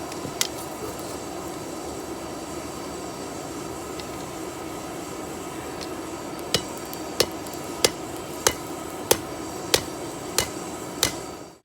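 Hammer blows on hot steel on an anvil, ringing sharply, over a steady rushing background. There is one blow near the start, then a steady run of eight blows from about halfway, roughly one and a half a second, as a borax-fluxed piece is hammered to forge-weld it.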